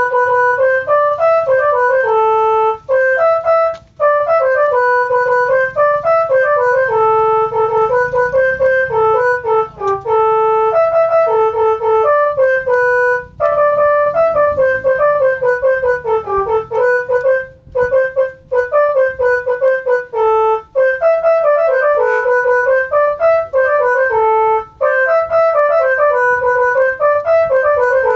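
Bus telolet horn, a set of electrically switched air horns, playing a quick melody of short stepping notes with a few brief pauses, over a low rumble.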